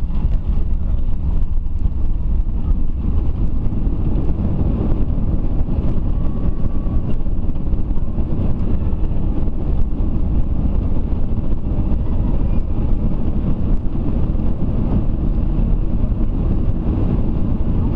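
Steady low roar of an airliner cabin: engine and airflow noise heard from a passenger seat.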